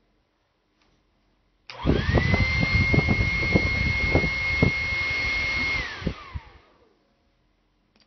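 Hair dryer switched on about two seconds in, running with a high steady whine over a rush of air for about four seconds, then switched off, its whine falling as the motor winds down.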